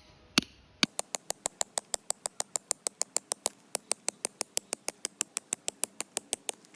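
Rapid, machine-even ticking, about six sharp clicks a second, as a percussion or ticking sound effect in the edited soundtrack. It starts just under a second in and gives way to acoustic guitar music near the end.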